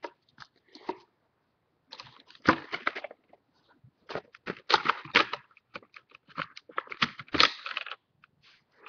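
Stiff plastic toy packaging being handled and pulled open: quick crackling and clicking in three bursts, about two, four and seven seconds in.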